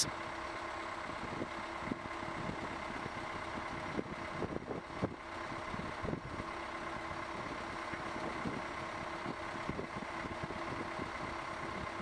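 A steady, fairly quiet engine hum with a few faint held tones in it, swelling slightly around the middle.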